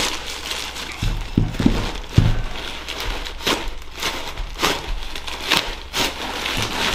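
A plastic shipping bag and its packing material being handled and pulled apart by hand: an irregular run of crinkling, crackling rustles, with a few dull thuds about one to two seconds in.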